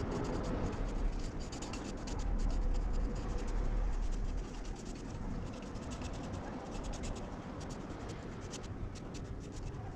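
Rapid, repeated scratching strokes against a surface, over a low rumble that eases off about halfway through.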